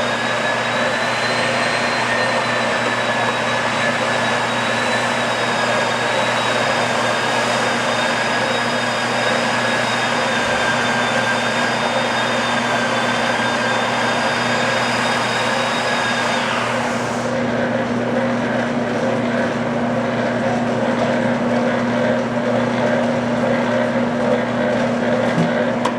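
Hobart V1400 planetary floor mixer running with its covers off: a steady motor and gear-drive hum with a high whine over it. About 17 seconds in the whine stops and the lower hum carries on.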